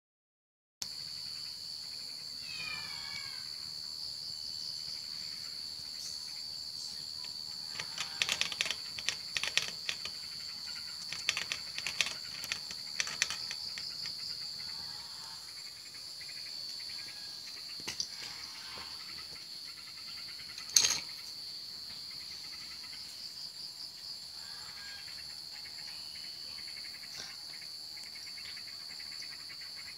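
Rapid clicks and rattles from a baby mongoose moving around a wire cage and its metal food bowl, over a steady high-pitched whine, with one sharp knock about two-thirds of the way through.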